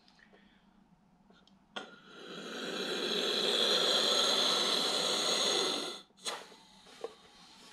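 Air rushing into a rubber balloon as it is inflated inside a box: a click, then a loud steady hiss that swells, holds for about three seconds and cuts off suddenly, followed by two small clicks.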